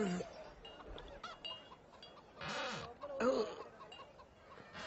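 Quiet cartoon soundtrack: a short rush of noise, then a brief wordless, bleat-like voice sound about three seconds in.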